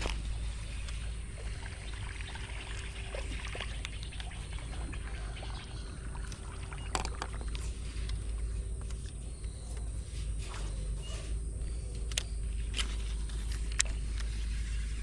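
Steady low rumble with a faint steady hum, from a small fishing boat sitting on a river, with a few light clicks near the middle and towards the end.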